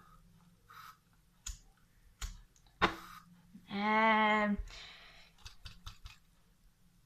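Sharp clicks of a hand-held lighter being worked again and again: a few about 1.5–3 s in, the loudest just before 3 s, then a quick cluster near 6 s. About 4 s in a boy makes a short hummed vocal sound.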